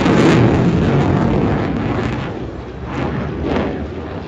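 Jet roar from an F-22 Raptor's two afterburning turbofan engines in flight, loud at first and easing off after about two seconds, with two short swells about three seconds in.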